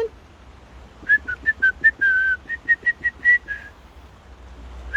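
A person whistling a rapid string of about a dozen short, high notes, one held a little longer, to call a dog back. The whistling starts about a second in and stops just before the end.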